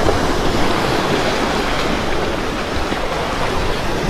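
Steady rushing wash of sea waves against the shore, with no breaks or distinct strikes.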